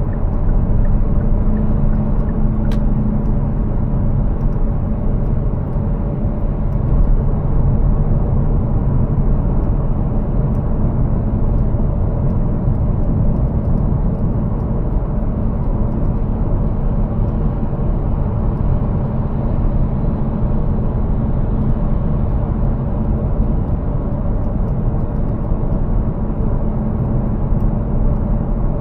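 Steady driving noise of a Kia Cerato 2.0 under way: tyre and road noise with the hum of its 2.0-litre four-cylinder petrol engine, weighted to the low end and unchanging throughout.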